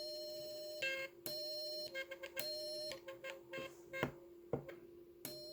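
(tr)uSDX transceiver's CW sidetone: a steady mid-pitched beep keyed on and off as the rig transmits in CW, first in long holds, then in a quick run of short beeps. A couple of sharp clicks come about four seconds in, and a faint steady hum runs underneath.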